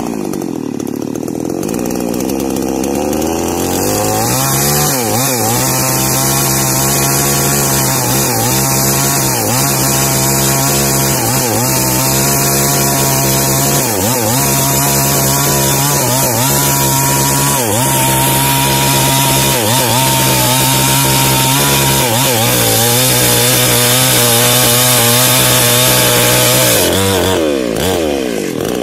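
Small two-stroke New Paxton chainsaw running with its chain mostly off the wood: it drops to a low speed at the start, revs up about four seconds in and holds high, dipping briefly every couple of seconds. Near the end the revs drop and climb again as the saw goes back into the trunk.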